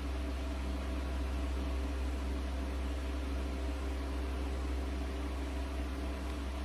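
Steady low hum with a few steady tones over an even hiss, unchanging throughout.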